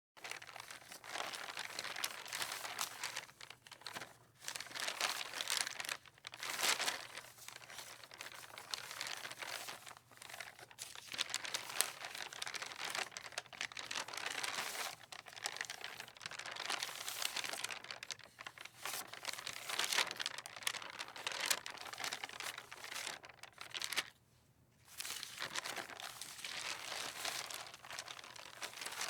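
Sheets of paper rustling and flapping in the wind: an irregular, continuous crinkling with sharp crackles, swelling and fading in gusts, with a brief lull about 24 seconds in.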